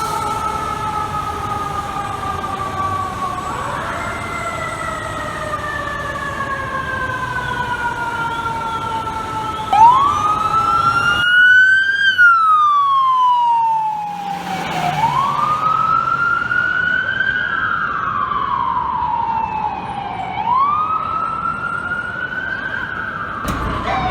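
Fire truck sirens. A siren tone glides slowly down in pitch, pushed back up once about four seconds in. Then, about ten seconds in, a wail starts rising and falling in pitch roughly every five seconds.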